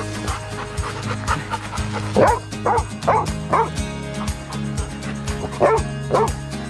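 Golden retriever giving short whining yips, a quick run of about five a couple of seconds in and two more near the end, over background music with a steady beat.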